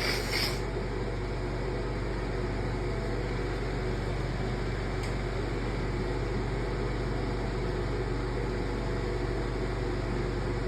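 Steady background hum and hiss, like a fan or air conditioner running, with a short hissing burst right at the start.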